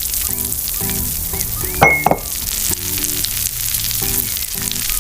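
Steady crackling hiss under soft music of short, repeated notes; a sudden brief high whistle-like tone about two seconds in.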